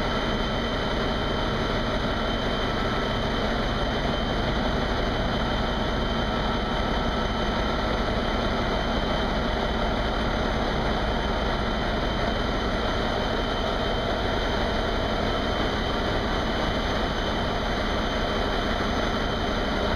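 Barge's large diesel engine running steadily in its engine room: a loud, constant din, measured at about 99 dB.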